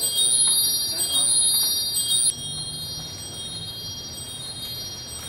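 Pipe organ's Zimbelstern (cymbal star) ringing its small tuned bells in a repeating pattern. The bells are struck about once a second for the first two seconds, then ring on more softly.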